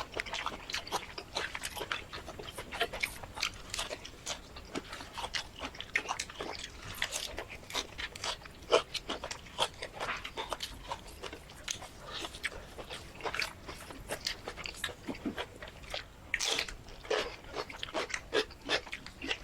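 Eating sounds of shrimp curry with rice: steady, irregular chewing and crunching, many small clicks a second.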